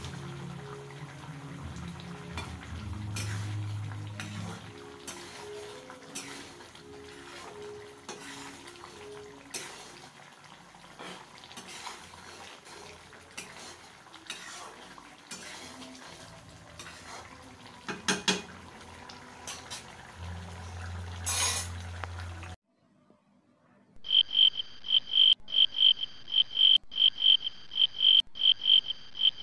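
Spatula stirring and scraping through a bubbling egg curry in a kadai: clinks and scrapes against the pan over the simmer, the sharpest about 21 seconds in. The stirring cuts off, and after a brief quiet a loud, steady high chirping starts, broken by short gaps about once a second, like an added cricket sound.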